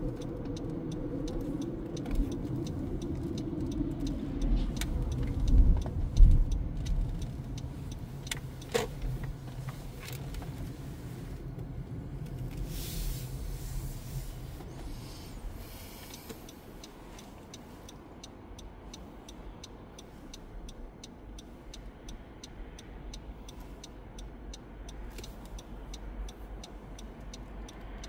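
Car driving, heard from inside: engine and road rumble that drops away after about halfway as the car slows. A regular ticking runs throughout, and there are a few thumps about five to six seconds in.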